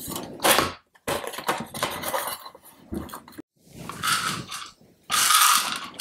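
Handling noise as a keyboard's sheet-metal backing plate and plastic case are fitted together: irregular scrapes, knocks and clicks, with a louder rattle near the end.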